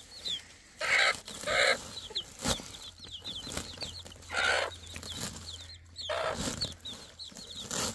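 Chickens squawking in short loud bursts, twice about a second in and again about halfway and near the end, as they are handled and moved from a sack into a plastic crate. A single sharp knock comes between the squawks, and short high chirps of small birds run throughout.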